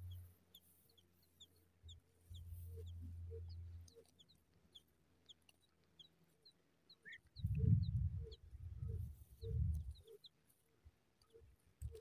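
A run of short, high, thin chirps, two or three a second, from small songbirds at a nest with chicks. From about seven to ten seconds in, a series of loud, deep thumps, the loudest sound.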